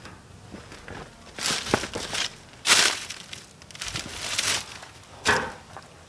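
Footsteps crunching on dry leaves, bark and wood debris: several separate crunches, the loudest about three seconds in.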